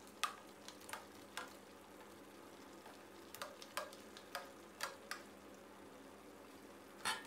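Faint, scattered taps and clicks as steamed shrimp, squid and corn are scraped off a plate with a plastic spatula and drop into a stainless steel wok of thick sauce, the loudest tap near the end.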